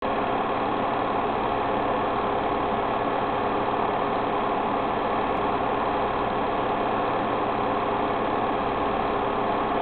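Steady mechanical running noise: a constant motor-like hum and whir that does not change in level.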